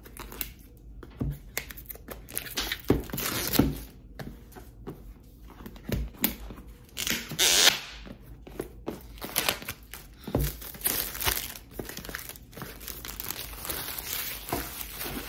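Cardboard box and paper packaging being opened and handled: irregular rustling, crinkling and sliding, with a few soft knocks. The loudest scrape comes about seven to eight seconds in.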